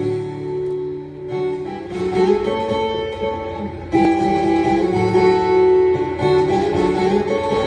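Instrumental music on a plucked viola caipira, the Brazilian ten-string guitar, playing chords and melody notes; it gets louder about four seconds in.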